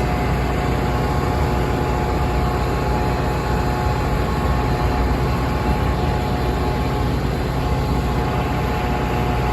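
Train passing close by: a steady, unbroken rumble of wheels on rail, with a few faint steady tones above it.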